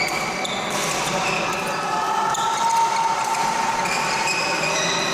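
Badminton doubles rally: sports shoes squeaking on the court floor in short high squeals, with sharp racket strikes on the shuttlecock.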